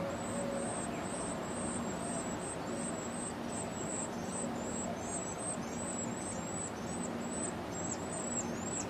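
A small bird gives a quick run of thin, high chirps, about two a second, stronger in the second half, over a steady background hiss and rumble.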